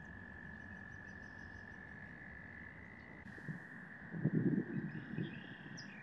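Frogs calling in a steady, unbroken high trill, with a few louder low croaks about four seconds in.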